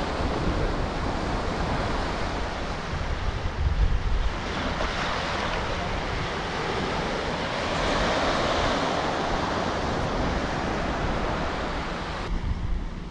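Small sea waves breaking and washing up a sandy beach, a steady rush of surf that swells a little louder about eight seconds in. Wind buffets the microphone underneath with a low rumble.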